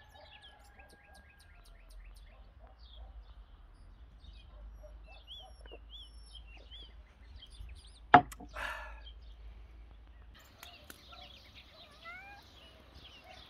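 Small songbirds chirping and calling repeatedly in short whistled notes. About two thirds of the way through comes a single sharp knock, the loudest sound, followed by a brief rustle.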